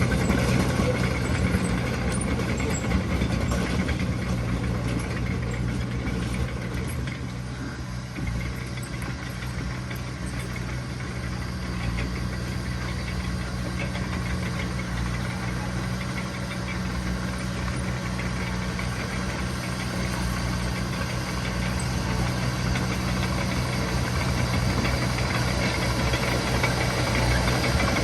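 Heavy diesel engine of earthmoving machinery running steadily, easing off slightly a few seconds in and building again toward the end.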